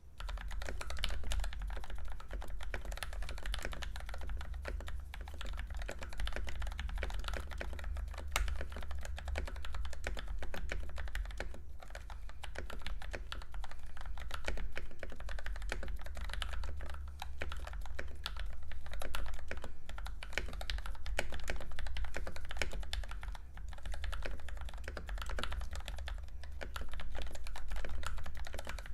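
Continuous typing on an NK65 Entry Edition mechanical keyboard with hand-lubed and filmed Gateron Yellow linear switches on a stock aluminium plate, and stabilisers re-lubed with dielectric grease. The keystrokes come thick and uneven, over a steady low hum.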